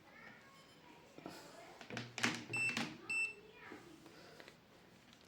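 A cat meowing faintly several times, with two short electronic beeps about two and a half and three seconds in, and a few light clicks.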